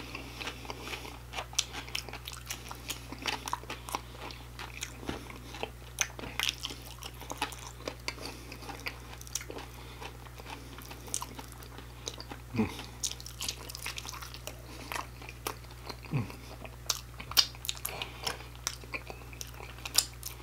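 Close-miked chewing of crunchy fried food, an irregular run of sharp crunches and wet mouth clicks over a faint steady low hum.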